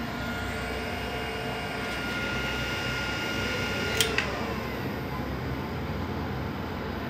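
Steady whine of a 12 V server power supply's cooling fan, cut by two sharp clicks about four seconds in as the mains is switched off and the 220 V 14-pin relay drops out to change the load over to battery; the fan's whine then winds down.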